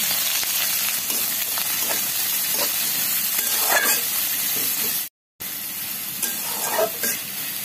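Finely chopped onion sizzling steadily as it fries in hot oil in a pan. The sizzle stops briefly about five seconds in, then carries on a little quieter.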